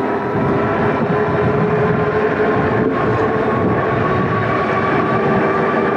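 An e-bike riding under electric motor power in pedal-assist level 4. A steady motor whine with a few tones rises slightly in pitch as it picks up speed, over the rumble of the 20-by-4-inch fat tires on pavement and rushing wind.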